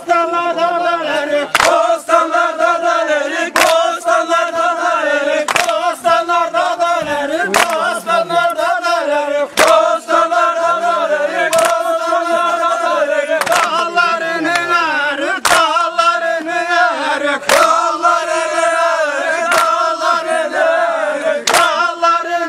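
A group of voices singing a folk dance tune together in long, sustained, wavering notes, with a sharp beat about every two seconds.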